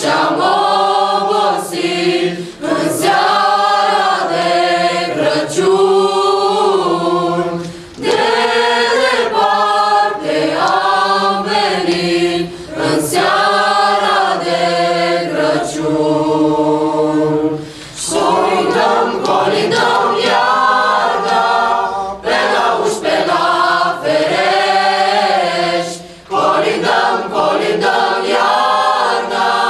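Mixed youth choir singing a Romanian Christmas carol (colindă) a cappella, in phrases of a few seconds with brief breaks for breath between them.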